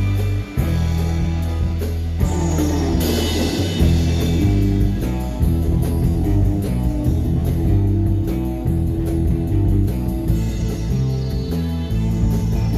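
Instrumental surf rock played by a band on electric guitar and drum kit, with a falling guitar sweep about two seconds in.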